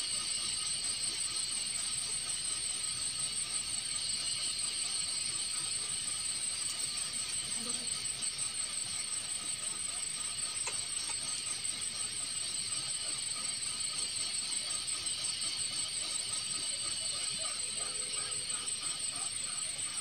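Insects trilling steadily in a high-pitched, fast-pulsing chorus, with a faint hiss beneath.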